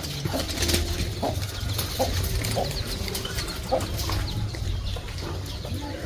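Yard birds, chickens and zebra doves, giving short scattered calls about once a second, over a low steady hum.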